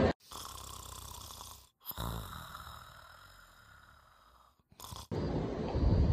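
Snoring: one snore, a brief break, then a second, longer one that fades away. About five seconds in it cuts to louder outdoor noise with wind on the microphone.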